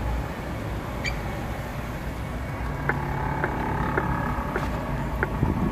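Kitchen knife chopping sundae (Korean blood sausage) on a wooden cutting board: a string of short, sharp knocks about two a second, starting about three seconds in, over a steady low background rumble.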